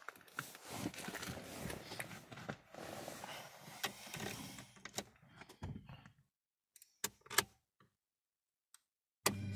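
Rustling and a run of sharp clicks in a car cabin for about six seconds, with no steady engine note standing out. Then silence broken by two clicks, and music starts near the end.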